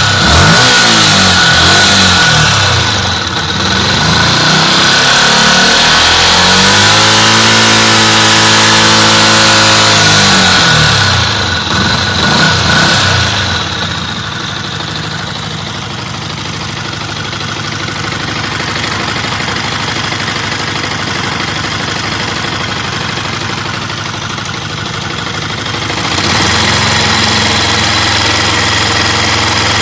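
2012 Yamaha WR125R's 125 cc single-cylinder four-stroke engine through its stock exhaust, blipped up and down several times. It is held at raised revs for a few seconds, which rise and fall away, then settles to a steady idle. Near the end it runs at a steadier, higher speed with another blip.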